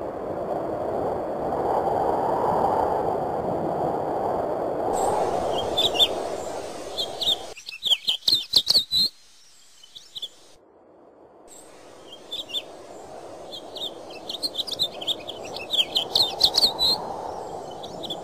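Small birds chirping in quick twittering runs over a steady rushing background noise. The chirping starts about five seconds in, stops along with most of the background for a couple of seconds near the middle, then returns.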